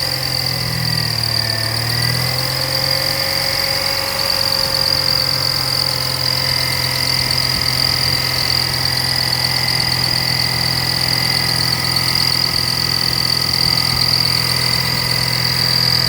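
Toyota Celsior (Lexus LS430) 3UZ-FE V8 idling with a steady, high-pitched whine from the belt-driven accessories. The owner suspects the whine comes from a failing No.2 A/C idler pulley bearing.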